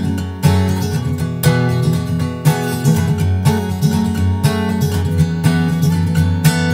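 Background music: an acoustic guitar strummed in a steady rhythm, about two strums a second.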